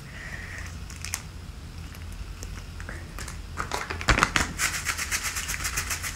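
A plastic packet of chili flakes shaken over a plate, making rapid, crinkly rattling strokes from about four seconds in. A few light clicks come before that.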